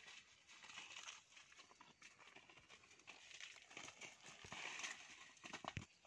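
Faint rustling and crackling of dry leaves on the ground, with scattered light clicks, as a monkey and a person move about on them.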